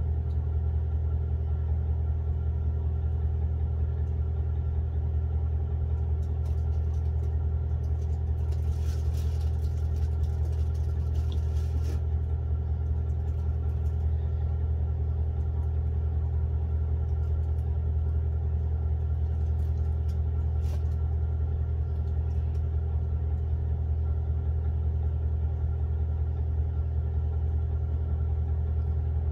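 A steady low mechanical hum, unchanging throughout, with a few faint ticks and a brief soft hiss about eight to twelve seconds in.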